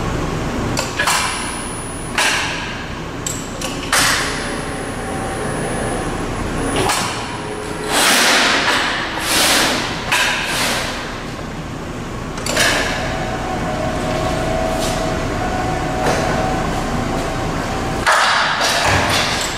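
Steel sheet being pushed and slid across a CIDAN folding machine's table: a string of irregular thumps and metal scrapes over a steady low hum, with a faint steady tone for a few seconds past the middle.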